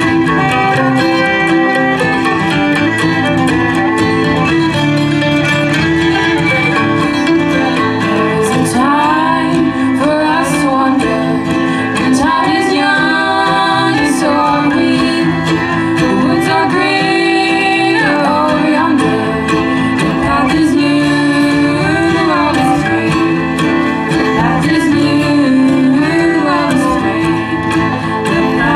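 Live acoustic string band playing a bluegrass tune: strummed guitar with a fiddle carrying a gliding melody over it.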